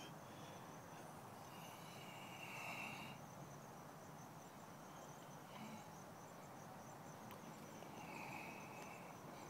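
Faint outdoor ambience: insects chirping, with a high, rapidly pulsing trill through the middle and three separate calls about a second long.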